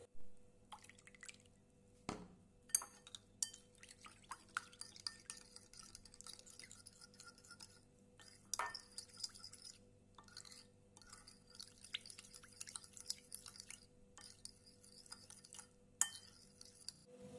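Metal teaspoon stirring gelatine into water in a ceramic bowl: soft scraping and splashing with light clinks of the spoon against the bowl, a few of them sharper.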